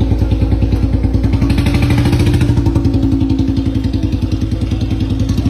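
A small engine running steadily close by, with an even, rapid chugging pulse of about eight to ten beats a second.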